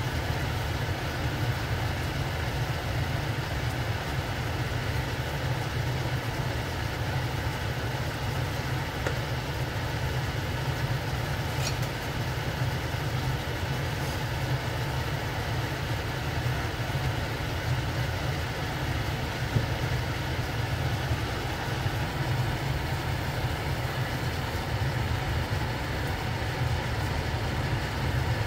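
Konnyaku simmering in a reducing glaze in a stainless steel saucepan on a gas hob: steady bubbling and sizzling over an even low rumble.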